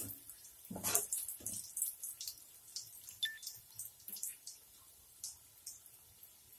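Hot oil crackling with scattered small pops around besan-battered potato balls deep-frying in a kadai. About a second in there is a louder scrape or knock, from the wire skimmer turning them.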